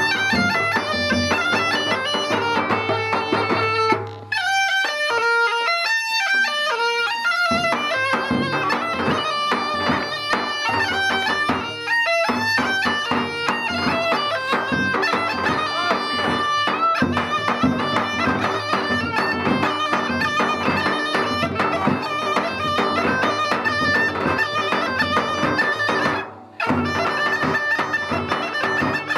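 Bagpipe with a white skin bag playing a fast folk melody over a steady low drone. The playing breaks off briefly about four seconds in and again near the end.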